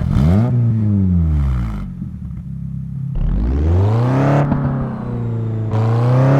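Toyota 4A-GE 1.6-litre inline-four engine being revved: the revs climb quickly, fall slowly back to near idle over about two seconds, then climb again about halfway through, hold, and rise once more near the end.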